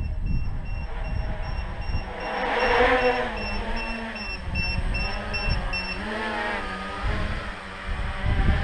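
Tricopter's electric motors and propellers whirring, the pitch wavering up and down as it comes in low and lands. Over it a regular run of short high beeps, about three a second, stops about six seconds in: typical of a low-voltage battery alarm, and the owner says the battery is weird. Wind buffets the microphone throughout.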